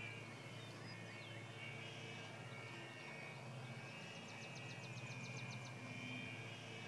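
Electric outrunner motor and propeller of an RC foam warbird in flight, a faint steady whine whose pitch dips slightly as the plane passes, around five seconds in.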